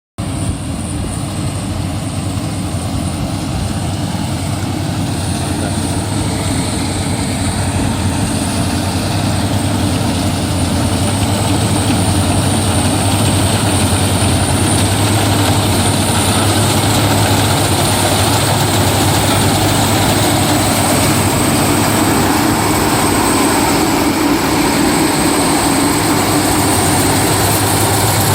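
Rice combine harvester's engine running steadily under load, slowly growing louder, with a thin steady high whine over its hum.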